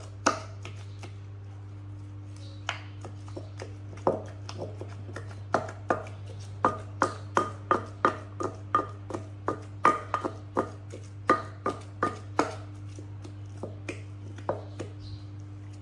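Wooden pestle pounding food in a clay mortar: sharp knocks, each with a brief ringing note from the mortar. The knocks are scattered at first and come about two to three a second through the middle before thinning out near the end. A steady low hum runs underneath.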